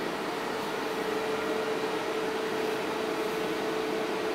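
Cooling fans of a Fairlight CMI Series III running, a steady whir with one constant pitch.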